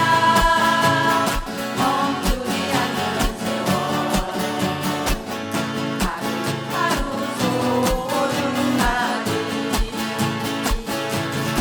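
Music: an accompaniment with a steady drum beat under a melody line.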